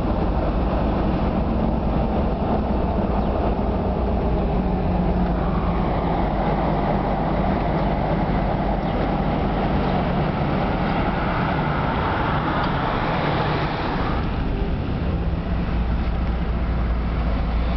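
Road noise inside a car driving on a highway: a steady low engine and tyre rumble with a hiss of wind and tyres that builds and then drops off abruptly about fourteen seconds in.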